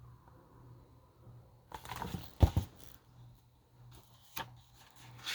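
Handling noise from a picture book: rustling and clicks as a page is turned, with one soft thump about two and a half seconds in, over a faint low hum.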